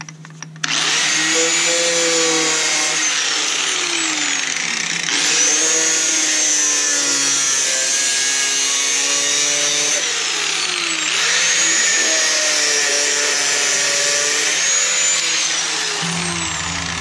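Angle grinder with a cut-off wheel slicing through rusted sheet steel of a pickup's cab corner: a high motor whine over a harsh grinding hiss. It starts about a second in, comes in fresh twice more as the cut goes on, and winds down near the end.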